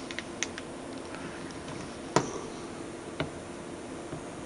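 Light clicks and taps of a soldering iron tip and solder wire against a circuit board's pads and a capacitor's legs while a joint is being soldered. A few faint ticks come in the first half second, a sharper click about two seconds in and another about a second later, over a low steady hum.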